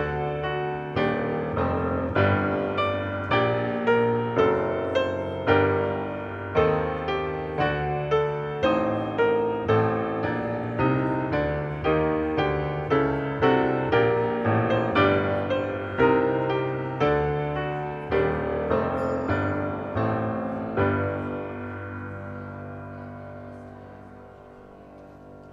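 Solo piano postlude: chords struck at a steady, unhurried pace, ending with a last chord held and slowly fading out.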